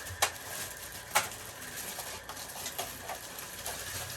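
Hard plastic parts of a Deerma DX700 stick vacuum knocking and clicking as they are handled and fitted together: two sharp knocks in the first second and a half, then a few lighter ticks.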